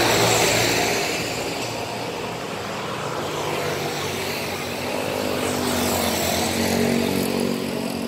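Heavy traffic passing close by: a bus rushes past at the start with tyre and engine noise that fades after about a second, then another large vehicle's engine builds up and passes around six to seven seconds in.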